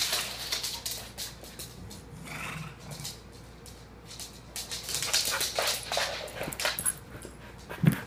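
Two dogs play-fighting: scuffling with many quick clicks and rustles, a short whine about two seconds in, and a sharp low thump just before the end.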